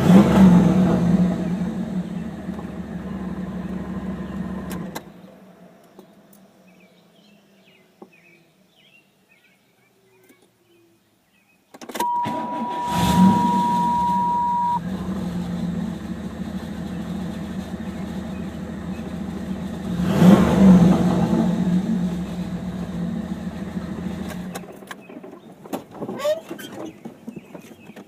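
1991 Pontiac Trans Am's tuned-port-injected V8 idling, then shut off about five seconds in. After a stretch of near silence it fires up at once, with a steady warning tone for about three seconds, surges in revs, idles, surges again, and is switched off near the end, followed by a few light clicks.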